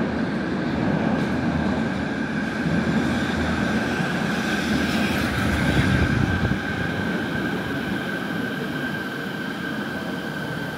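Train running on rails: a steady rumble with a constant high whine, easing off slightly in the second half.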